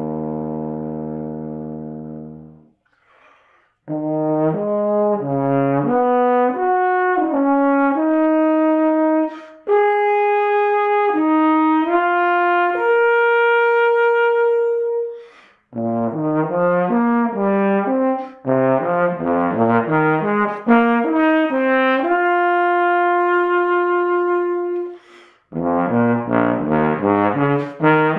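Unaccompanied bass trombone playing a slow passacaglia. A low held note fades away at the start, then come phrases of stepping notes with longer held notes, broken by short pauses between phrases.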